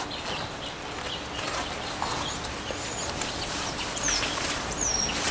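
Birds giving a few short, high chirps in the second half, over the faint rustle of a nylon stuff sack as a folding camp chair is pulled out of it.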